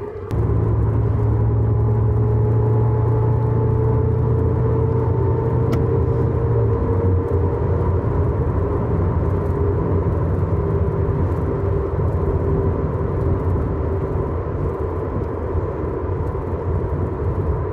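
Third-generation Pontiac Trans Am under way, with a steady whine from its rear differential over the engine and road rumble; the whine rises slightly in pitch over the first few seconds, then holds. It is a differential noise still present after a complete restoration.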